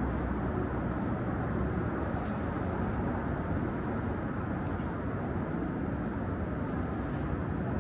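Steady rumble of traffic on a downtown city street.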